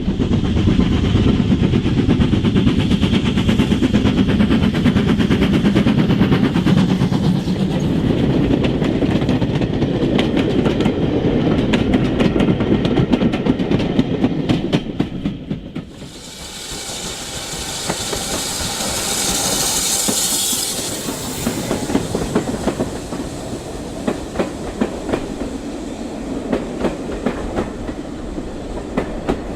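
OO gauge model steam train running on the layout: a steady rumble of wheels with quick clicks over the rail joints. About halfway through the rumble drops away and a steady steam hiss takes over, loudest a few seconds later.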